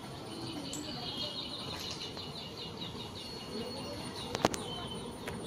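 A bird calling in a fast run of short, high chirps, about five a second, over faint outdoor background noise; two sharp clicks come about four and a half seconds in.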